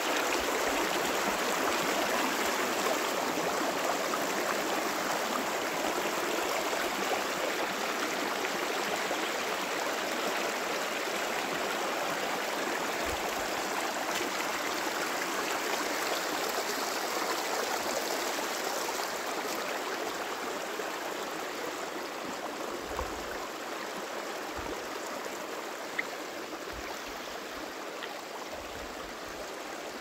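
Shallow river water running over granite stones in small rapids: a steady rush of flowing, splashing water that eases slightly toward the end.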